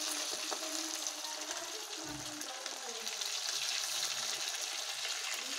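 Chicken pakoda pieces deep-frying in a kadai of hot oil, sizzling steadily.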